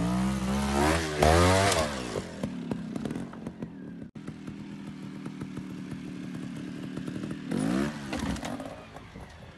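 Beta Evo trials motorcycle engine revved in quick blips, settling to a steadier run, then revved hard again near the end as the bike is lifted onto its back wheel.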